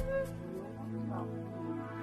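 Soft instrumental music with sustained steady tones and a brief wavering pitch about a second in.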